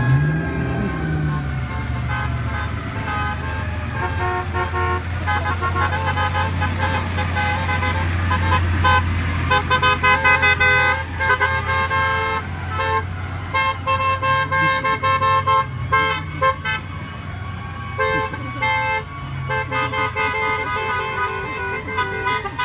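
Car horns honking in many short, overlapping toots from a line of slowly passing cars, over a low steady engine hum.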